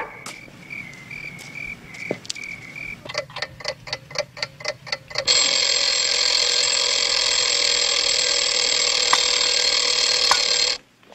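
Wind-up mechanical alarm clock ticking quickly, about four or five ticks a second, then its bell ringing loudly and steadily for about five seconds. The ringing stops abruptly as the clock is switched off.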